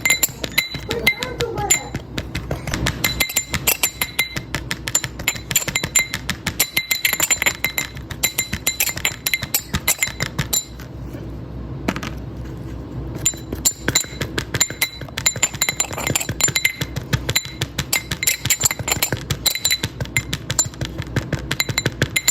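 Rapid, irregular crisp clicks and clinks, several a second, over a faint steady high ringing tone; the clicks thin out for a few seconds near the middle.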